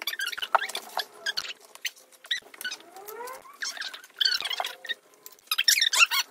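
Sped-up (fast-forwarded) voices and handling noise while a wooden lantern kit is being assembled. The chatter is raised into rapid, high, squeaky chipmunk-like chirps, mixed with quick clicks of parts.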